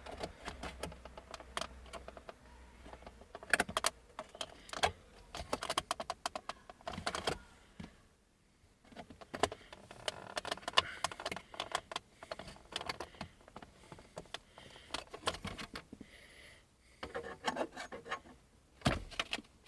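Irregular clusters of sharp clicks, taps and light rattles from the hard plastic parts of an Audi A6 C6 centre armrest latch and lid being worked loose with a pry tool, with a couple of short pauses.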